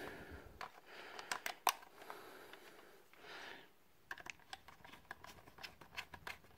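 Light, irregular clicks and taps of hard plastic as a Palitoy K-9 toy's casing is handled and turned over, with a short soft rustle about three seconds in.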